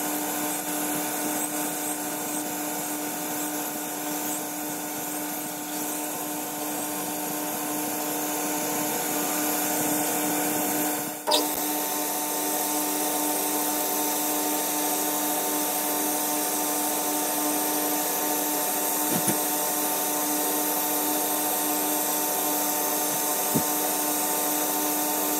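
Boxford BUD lathe running at steady speed with a steady motor and gear hum while small brass work is turned and parted off. The sound shifts with a sharp click about eleven seconds in.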